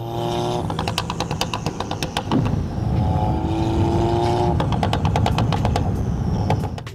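Tuned VW/Audi MQB turbocharged four-cylinder revved twice and let off, each time followed by a rapid run of exhaust pops and crackles on the overrun. This is the ECU crackle tune firing on throttle lift above 3,000 rpm.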